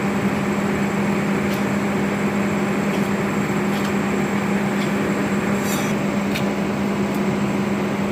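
A steady mechanical hum with a constant low tone, like a machine running nearby, with a few faint light clicks as metal brake discs are handled and stacked.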